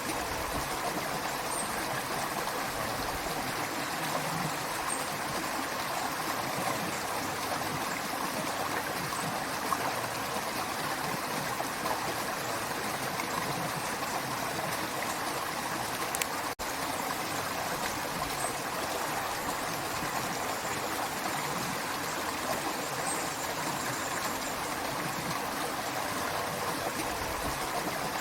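A running creek: water flowing and babbling steadily over stones. There is a momentary dropout a little past halfway.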